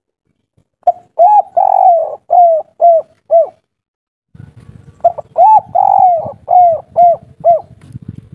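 Spotted dove (derkuku) cooing two song phrases, the first starting about a second in and the second about five seconds in. Each phrase is a short coo and two longer ones, then three short 'kuk' notes: the 'kuk 3' song type. A low rumble comes in between the two phrases.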